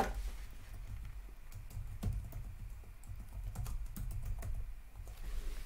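Typing on a computer keyboard: irregular key clicks over a low steady hum.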